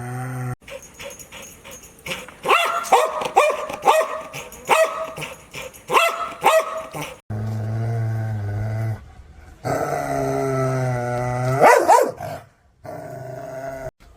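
Angry dog growling low, then breaking into a quick run of about a dozen sharp barks over five seconds. It then goes back to long, deep growls, with a rising snarl near the end.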